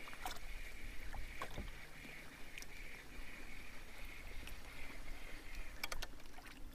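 Quiet sounds aboard a kayak at sea: water lapping at the hull and a faint, steady whir as a spinning reel is cranked in, with a few light clicks, a sharper pair near the end.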